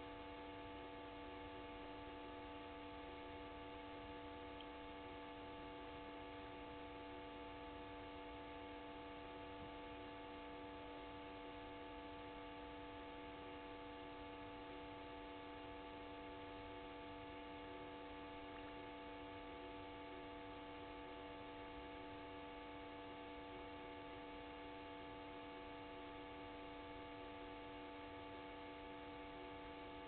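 Steady electrical hum made of several fixed tones over a faint hiss.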